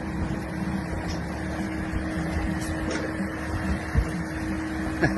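Jeep Wrangler's engine running steadily as it drives through shallow water, with water splashing around the tyres.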